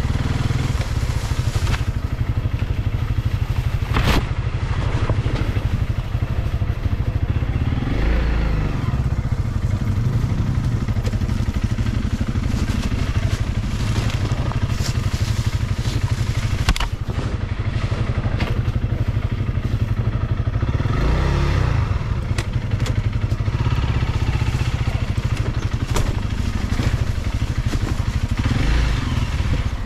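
Single-cylinder dual-sport motorcycle engine running continuously, the revs rising and falling several times, with a few sharp knocks and clatter from the bike over rough trail.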